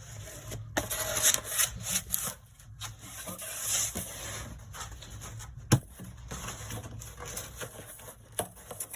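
Creased cardboard being folded up and its tabs tucked in by hand: irregular rubbing and scraping with scattered clicks, and one sharp snap a little past halfway through.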